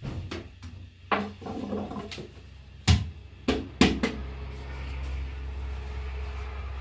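Wooden knocks and clatter as a thin flatbread is worked at a domed metal griddle with a long wooden stick and a round dough board: about nine sharp knocks in the first four seconds, the loudest about three seconds in. A steady low hum runs underneath and comes up more plainly after that.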